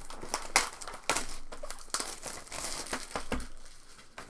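Foil trading-card pack wrappers crinkling as packs are opened, an irregular run of sharp crackles and rustling.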